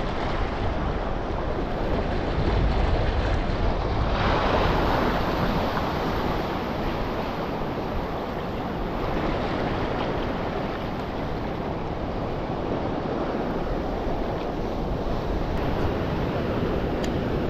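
Sea waves washing against rocks, with wind buffeting the microphone as a low rumble; the surf swells louder about four seconds in.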